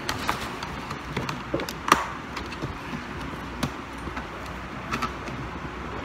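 Plastic clicks and snaps as a pry tool works around the edge of an MSI laptop's bottom cover, releasing its clips. About five sharp clicks come a second or so apart, the loudest about two seconds in.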